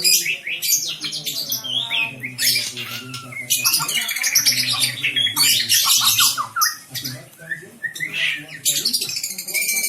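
White-rumped shama singing loudly and continuously in rapid phrases of gliding whistles and harsh, squawky notes, over a steady low hum.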